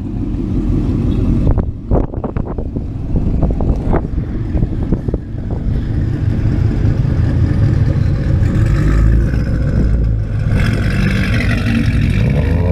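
Whipple-supercharged Camaro's V8 running steadily while driving, heard from inside the cabin, with a few sharp knocks about two seconds in.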